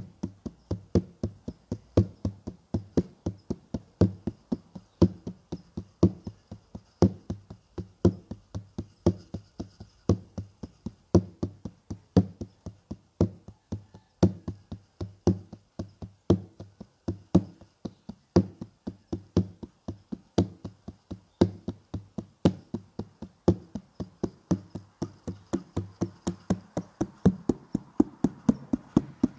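Steady, rapid drumbeat of low-pitched strikes, about four a second, some accented.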